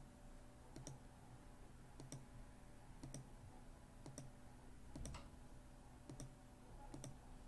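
Faint computer mouse clicks, about one a second, often as a quick pair of ticks, over a faint steady hum.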